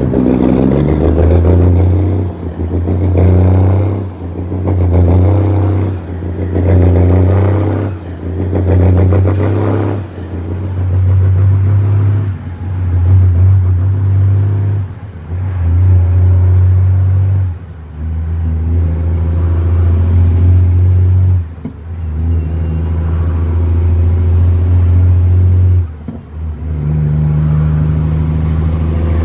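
Western Star heavy truck's diesel engine pulling hard, with about ten quick gear changes, each a short dip in the engine sound. The pulls between changes grow longer as the truck works up through the gears, and a faint high whistle climbs with the revs in each one.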